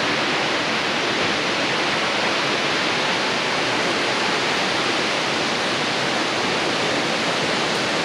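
Steady, even rush of a tall waterfall plunging down a cliff into a gorge.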